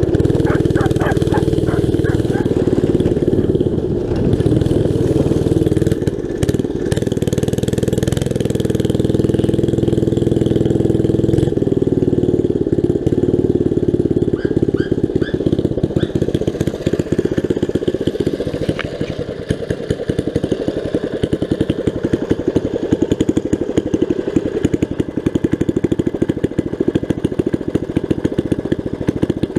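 Briggs & Stratton 5 hp single-cylinder flathead engine running on a go-kart during a ride, loud through a gutted muffler, its speed changing several times.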